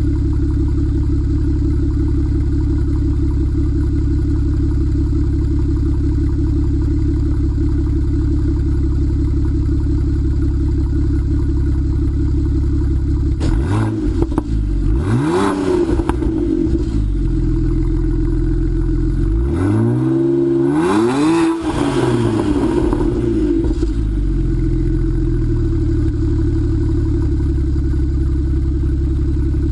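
BMW 335i's twin-turbo N54 straight-six, breathing through Remus Race axle-back mufflers and catless 3-inch downpipes, idling steadily with the car standing still. About halfway through it is revved once, then twice more in quick succession a few seconds later, each rev rising and falling back to idle.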